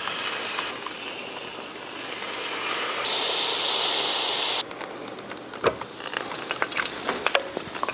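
Pork belly sizzling on the hot plates of an electric waffle maker: a steady hiss that builds, is loudest just past the middle and cuts off suddenly, followed by scattered crackling pops of fat.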